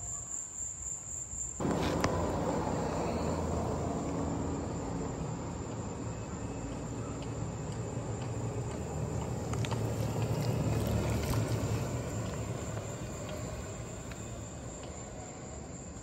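Crickets trilling steadily; about a second and a half in, the steady low drone of a vehicle on the road comes in, swelling and then easing off.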